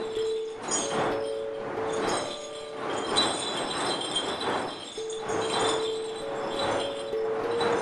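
Ringing, chime-like metallic music from a rammerdrum, with long held tones and rushing swells that come about once a second.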